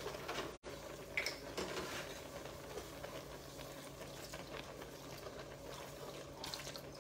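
Milk poured from a plastic jug into a pot of hot butter-and-flour roux while a wooden spoon stirs it, giving faint liquid splashing and simmering sounds, with a faint steady hum underneath.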